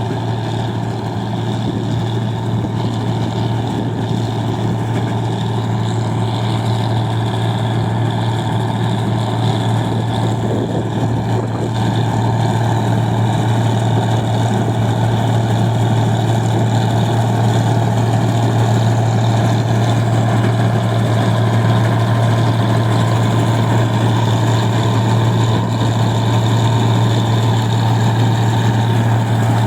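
Engine of a rice-processing machine running steadily at a constant speed, a loud, even drone that gets slightly louder about twelve seconds in.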